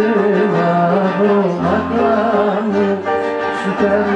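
Live Greek popular-song music played on bouzouki and keyboards.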